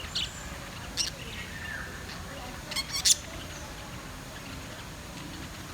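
Small cage birds giving short, sharp high chirps: one just after the start, one about a second in, and a quick cluster around three seconds in, the last of them the loudest.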